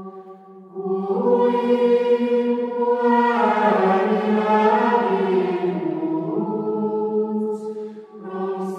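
Background music of a choir chanting sustained notes over a low held drone, swelling louder about a second in.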